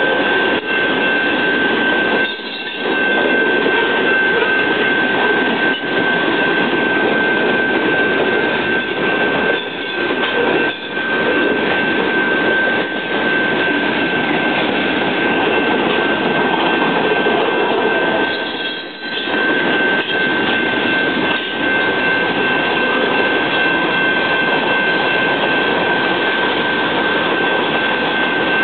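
Norfolk Southern intermodal freight train rolling through a level crossing: a steady, loud rumble and rattle of the cars passing, with a thin high tone running through it. The sound dips briefly twice, about two seconds in and again near the two-thirds mark.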